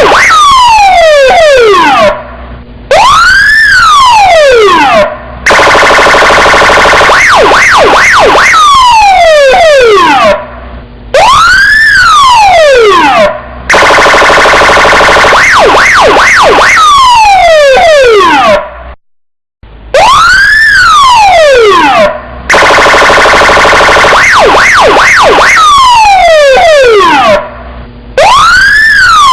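Police car electronic siren running through a repeating pattern: a burst of quick warbles, a long falling sweep, a short break, then a wail that rises and falls. The sequence comes round about every eight to nine seconds, with a brief total dropout a little past halfway.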